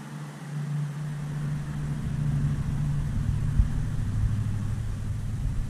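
A low, steady engine-like hum with a deep rumble that builds about a second in and stays.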